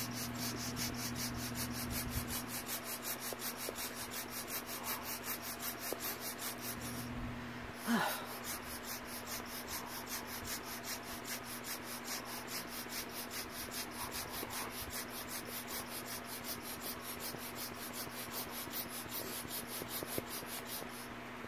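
Air pump worked in quick, even strokes, rasping rhythmically as it blows up a vinyl inflatable beach ball. The strokes pause briefly, and a short squeak falls in pitch about eight seconds in. A low steady hum runs underneath.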